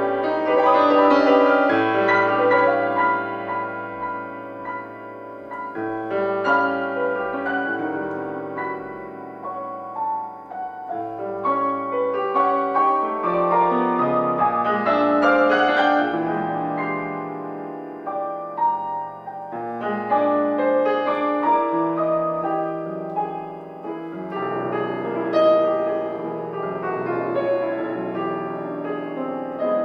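Solo grand piano playing classical music: dense chords and runs with the sustain pedal down, swelling louder and easing back several times.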